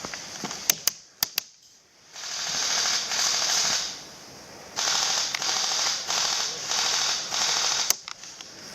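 Tokyo Marui Steyr HC high-cycle electric airsoft gun firing full-auto, its gearbox rattling: one burst of about a second and a half, then a string of about five short bursts in quick succession. A few sharp clicks come in the first second and a half.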